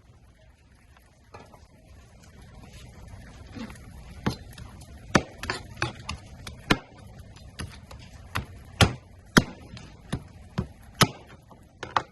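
Alaska king crab shell being broken apart by hand in cleaning: a dozen or more sharp, irregular cracks and snaps, starting a few seconds in after some quieter handling.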